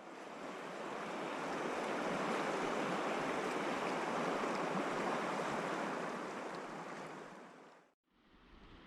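Steady rush of river water, an even hiss with no tone in it, fading in at the start and fading out near the end.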